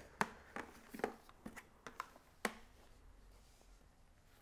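Light plastic clicks and taps, about eight in the first two and a half seconds and fainter after. They come from the clear dust cup and handheld motor unit of a Shark Vertex DuoClean stick vacuum being handled and pulled apart.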